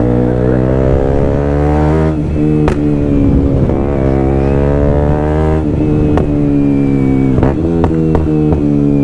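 Motorcycle engine pulling through the gears: the pitch climbs, then drops sharply at each upshift, about 2, 5.5 and 7.5 seconds in. A few sharp cracks are heard along the way.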